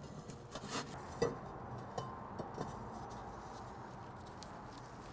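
A few metal clinks and knocks in the first couple of seconds as the Kamado Joe's Slow Roller heat deflector and Divide & Conquer rack are set into the grill, followed by a faint steady hiss.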